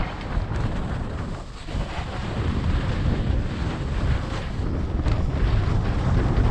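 Wind buffeting the microphone of a skier's camera during a fast descent, with the skis' scraping on the snow mixed in. It eases briefly about a second and a half in.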